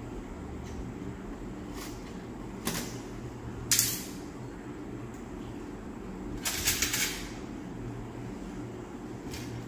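Metal surgical instruments clicking and clinking, a few separate sharp clicks and then a quick cluster of several about two-thirds of the way through, over a steady low hum.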